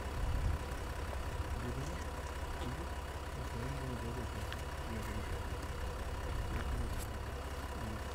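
Range Rover SUV's engine idling steadily, with faint voices in the background.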